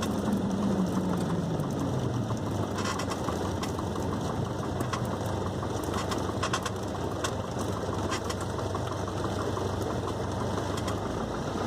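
Cessna 172's piston engine and propeller winding down in pitch over the first couple of seconds, then running steadily at a low idle.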